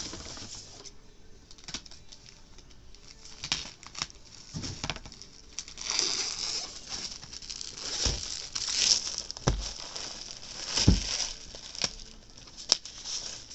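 Clear plastic wrap crinkling and rustling as it is pulled off a bolt of quilting fabric, busiest in the second half, with a few dull thumps.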